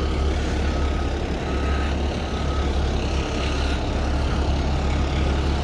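Tiller ladder fire truck's diesel engine running steadily as it reverses, with its back-up alarm beeping repeatedly over the rumble.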